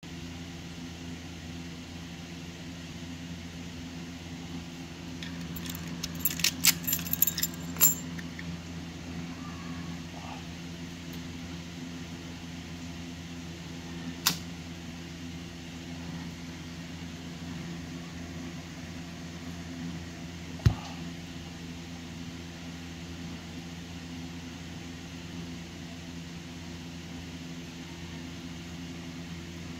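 A bunch of keys and a brass padlock jingling and clicking as they are handled and set down, from about five and a half to eight seconds in, followed by two single sharp metal clicks, over a steady low hum.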